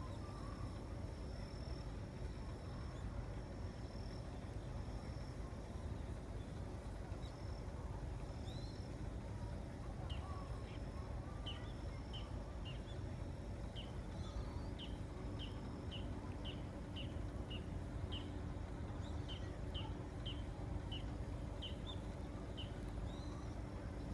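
Riverside ambience under a steady low rumble. A bird repeats a short, high, falling chirp about twice a second through most of the second half. A thin high steady note sounds on and off in the first half, and a faint low hum comes in about halfway.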